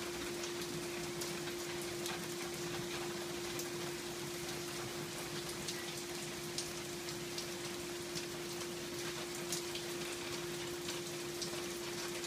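Steady rain falling on a lawn and patio, with scattered sharp drips of single drops landing close by. A steady humming tone runs underneath.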